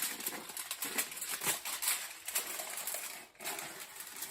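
Aluminum foil being torn by hand and crinkled, a run of irregular crackly rustles with a short pause about three seconds in.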